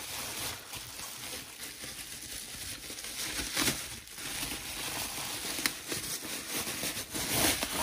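Parcel wrapping being handled and unwrapped by hand: continuous crinkling and rustling, with a few sharper crackles along the way.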